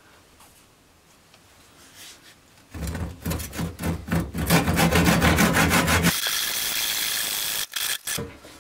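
Handsaw cutting a slot into a round wooden block held in a bench vise: fast rhythmic back-and-forth strokes begin a few seconds in. About six seconds in they give way to a steady hiss that stops sharply near the end, followed by a couple of clicks.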